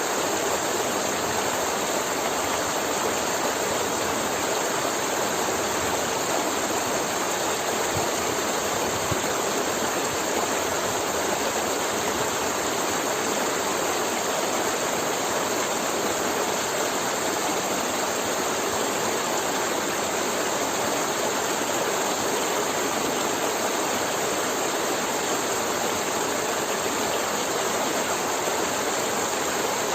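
Forest river flowing, a steady, unbroken rush and gurgle of water.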